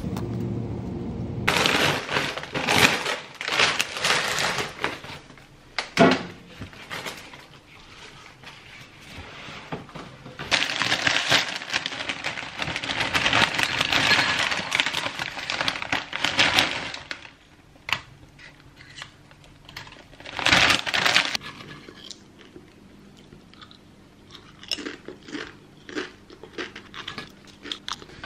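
A plastic crisp packet crinkling and tortilla chips pouring out of it into a bowl, a long spell of crackling and rustling in the middle, with shorter bursts of crackling before and after.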